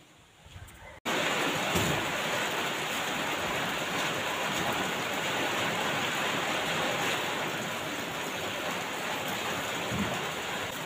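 A steady rushing hiss, like rain or running water, that starts abruptly about a second in and holds steady with no clear strokes or rhythm.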